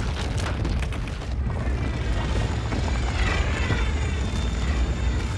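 Cinematic sound effects of the ground splitting open and a city being ripped up into the air: deep continuous rumbling with cracking and crashing debris throughout. A film score plays underneath.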